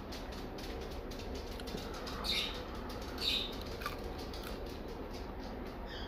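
A person biting and chewing a crispy cheese quesadilla close to the microphone: faint mouth clicks, with two short louder crunches about two and three seconds in.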